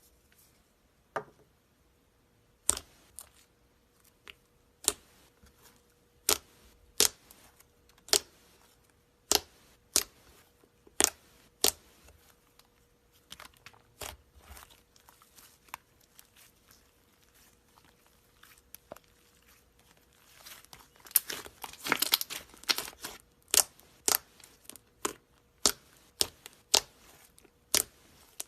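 Slime being pressed and stretched by hand, giving sharp pops and clicks about once a second, with a dense spell of crackling about three quarters of the way through.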